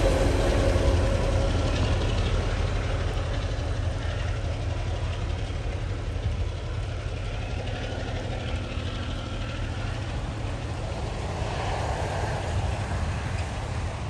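TasRail diesel locomotives hauling an empty cement train away: a low engine rumble and the noise of the wagons on the rails, fading steadily as the train recedes.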